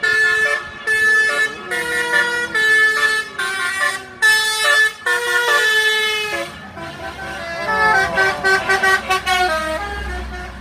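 A tour bus's telolet horn, the multi-tone musical air horn of Indonesian buses, playing a tune of separate held notes about half a second each. Near the end it switches to a quick run of short notes.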